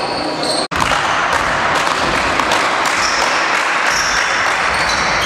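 Basketball game sounds in a sports hall: a ball bouncing on the court floor and short high squeaks over a steady hall noise. The sound cuts out for an instant less than a second in.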